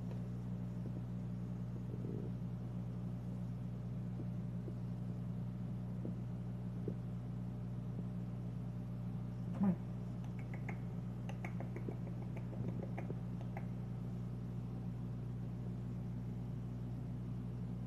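Steady low hum of aquarium equipment, with one short, louder knock or splash about halfway and a run of faint clicks and brief squeaks just after it.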